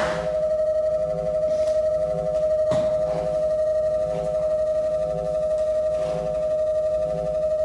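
Sound-therapy tones playing to a horse: a steady electronic tone held throughout, with a soft low pulse about every two-thirds of a second. A single sharp knock comes about three seconds in.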